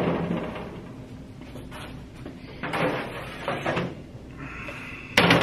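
Kitchen equipment being handled: soft knocks and rubbing, then a sharp knock near the end.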